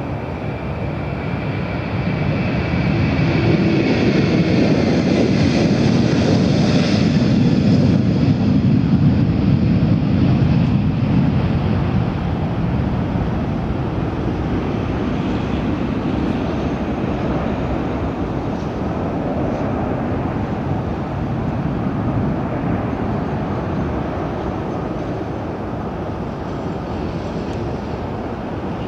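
Airbus A330-300's General Electric CF6-80E1 turbofan engines at takeoff power: a dense jet noise with a high whine, swelling to its loudest a few seconds in and then slowly fading as the aircraft moves away.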